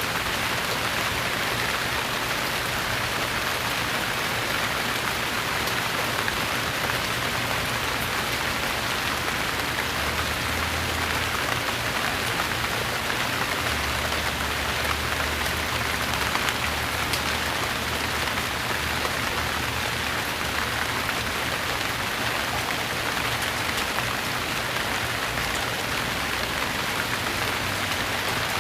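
Steady rain falling, an even, unbroken patter of raindrops on a surface.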